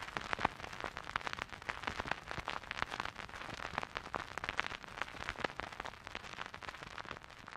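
Faint, dense, irregular crackling that thins out and fades near the end.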